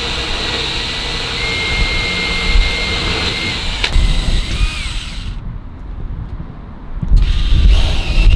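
DeWalt cordless drill running steadily with a high whine, boring small crack-stop holes through fibreglass hull where the cut lines end. The drill pauses about five seconds in, then runs again near the end with a heavier low rumble.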